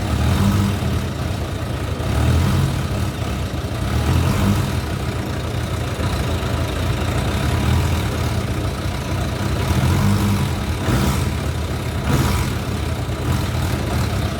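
Motorcycle engine idling, the throttle opened slightly every couple of seconds so the revs swell briefly and drop back; the throttle cable slack has just been adjusted so the engine answers a light twist.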